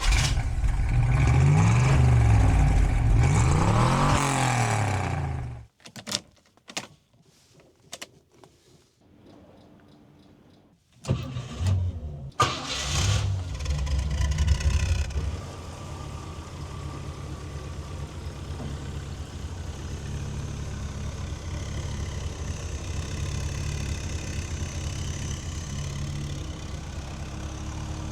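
Rover P6 3500's 3.5-litre V8 engine revving twice, its pitch rising and falling, then a quiet pause with a few clicks. About 11 seconds in the V8 is started and blipped, and from about 15 seconds it settles into a steady idle.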